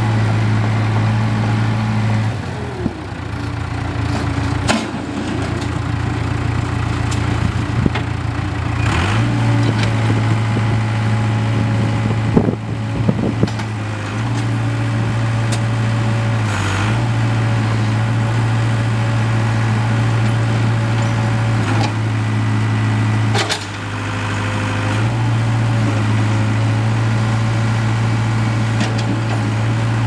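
Case 4-390 four-cylinder diesel of a Case 580 Super K backhoe running steadily while the hydraulics lower the outriggers and work the backhoe boom; the engine note dips and recovers several times as the hydraulics load it, with a few sharp clunks from the working machine.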